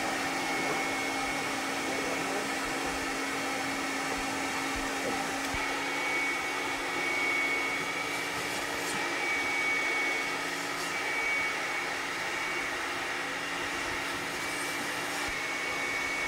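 Steady whooshing noise, like a fan or blower, with a faint steady high tone running through it and a few faint clicks.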